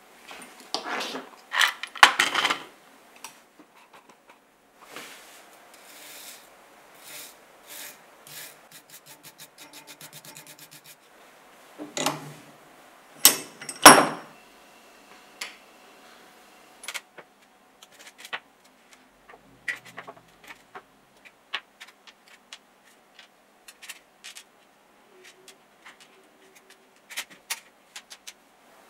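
Small metal parts of a disassembled power drill handled on a wooden workbench: rubbing and scraping, loudest about 14 seconds in, a quick run of ticks before that, then scattered light clicks and taps as pieces are picked up and set down.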